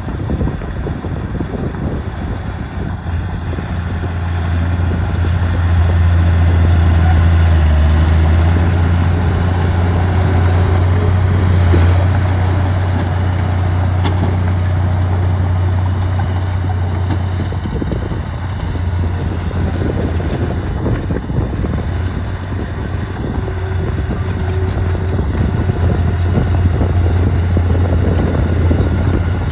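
Diesel engine of heavy earthmoving machinery running, a steady low drone that grows louder about four seconds in and eases back after about eighteen seconds.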